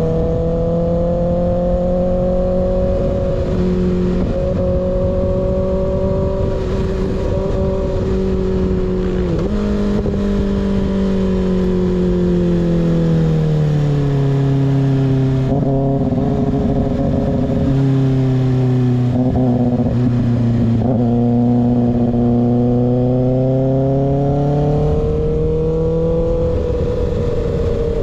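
Kawasaki ZX-6R inline-four through an unbaffled M4 GP19 slip-on exhaust, running steadily under way. Its note rises and falls gently, drops to a lower pitch about halfway through and climbs again near the end.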